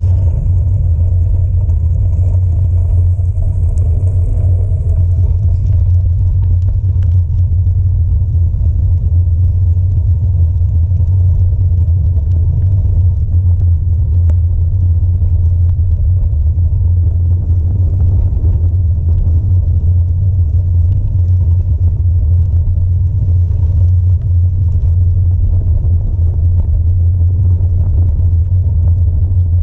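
Steady loud low rumble from a bicycle rolling down a gravel track, picked up by a camera clamped to the handlebars, with a few faint ticks and rattles.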